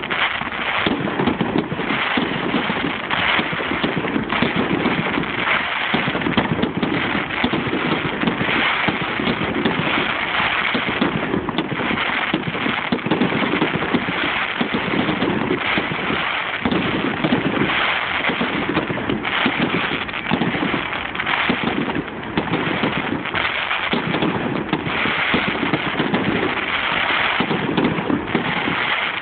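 Fireworks display at full barrage: a continuous, dense run of bangs and crackles with no gaps. It is recorded on a mobile phone, so it sounds dull, lacking its higher tones.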